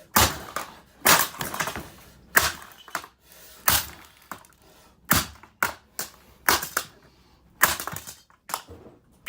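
Repeated hard blows smashing the plastic body of a Dirt Devil Classic race car vacuum cleaner, with plastic cracking and breaking. About a dozen irregularly spaced strikes.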